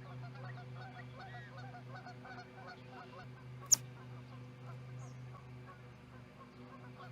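Many birds calling at once in a continuous, overlapping chorus, over a steady low electrical hum. About halfway through comes one sharp, loud snap.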